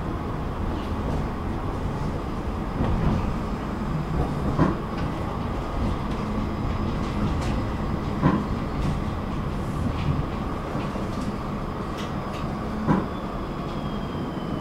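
Electric tram running, heard from inside the passenger cabin: a steady rumble of wheels on rails with three sharp knocks spread through it. Near the end a whine falls in pitch.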